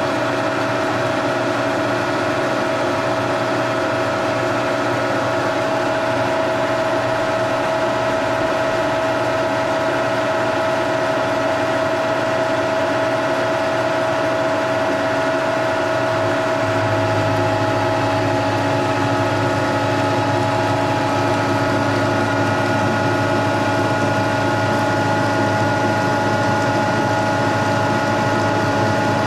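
Vintage horizontal milling machine with a vertical head attachment running, a steady gear whine from the spindle drive, while an end mill cuts a metal block clamped in the vise. About halfway through, a deeper hum and a higher tone join in as the cut goes on.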